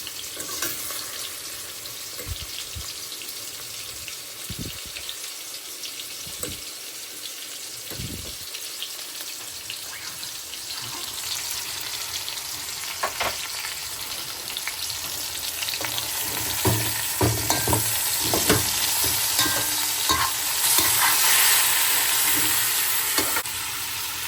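Meat frying and sizzling in hot oil in a pot, with a spoon knocking and scraping against the pot as it is stirred. The sizzle grows louder about halfway through, with the knocks coming thicker.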